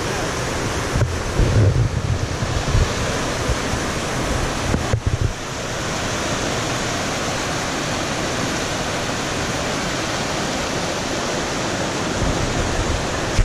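Mountain creek rushing over rocks and small cascades: a steady, even rush of water. For the first five seconds or so there is also a low, uneven buffeting on the microphone.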